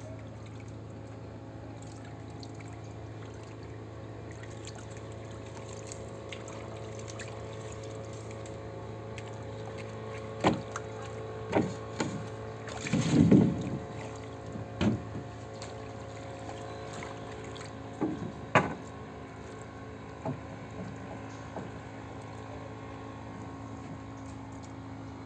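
Water sloshing and splashing in the hull of a fibreglass canoe, with several sharp knocks on the boat between about ten and twenty seconds in. The loudest splash comes around thirteen seconds. A steady low hum runs underneath.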